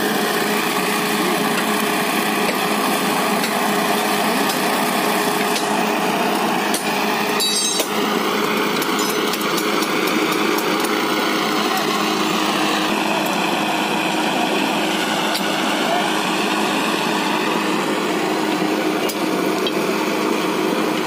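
A small engine running steadily, with a few sharp knocks about seven to eight seconds in.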